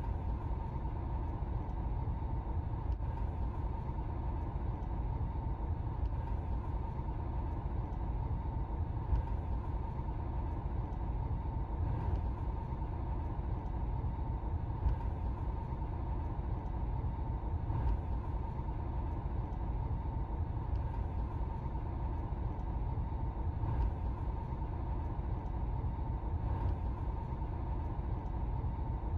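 A car driving, its steady road and engine rumble heard from inside the cabin through a dashcam's built-in microphone, with a faint steady whine above it.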